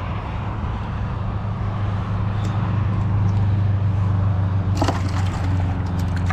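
An engine running steadily with a low hum that swells a little toward the middle, with a couple of sharp clicks about five seconds in.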